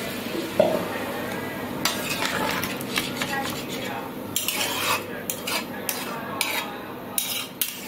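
Spatula stirring a watery curry in a pan, scraping and knocking against the pan in irregular clinks.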